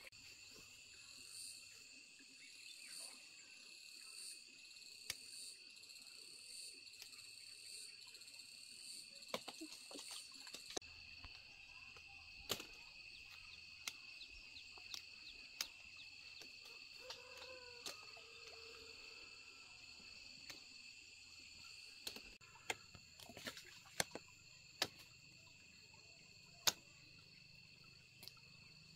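Steady insect chorus of crickets or cicadas, faint and high-pitched, with an extra pulsing chirp about once a second that stops about ten seconds in. Scattered sharp little snaps and clicks throughout as figs are broken off the trunk and handled.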